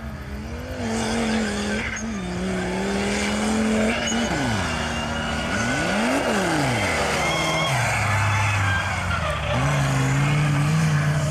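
Mud drag vehicle's engine running hard at high revs. Its pitch climbs at first, then dips and climbs back sharply twice about halfway through, before settling into a steady lower drone.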